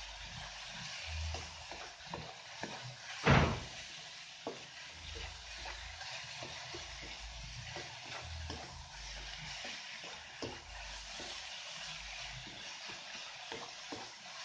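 Wooden spatula stirring and scraping sweetened grated coconut in a nonstick wok, with many light knocks against the pan over a steady hiss of cooking. One much louder knock comes about three seconds in.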